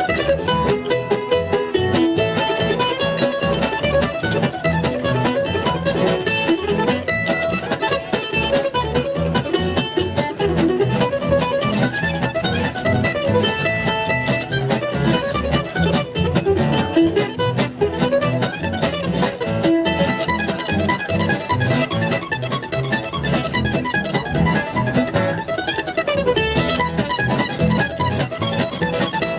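Instrumental bluegrass tune played on acoustic guitar, mandolin and upright bass, with plucked notes running steadily over a walking bass line.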